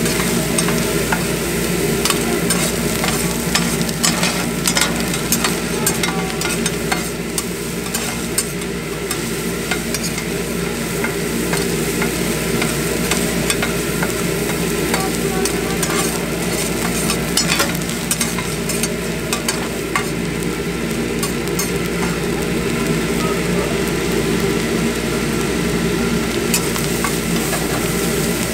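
Fried rice sizzling on a flat steel griddle while two metal spatulas scrape, chop and toss it, with frequent sharp clicks of the blades striking the steel. A steady low hum runs underneath.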